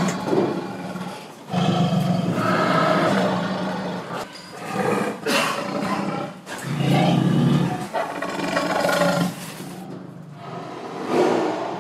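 Drawn-out animal calls, about five in a row, each lasting a second or two with short quieter gaps between.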